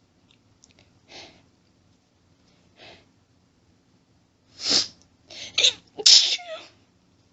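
A person's sneezing fit, sneezes only partly held back: two faint breaths, then a quick run of sneezes over about two seconds, the last the loudest.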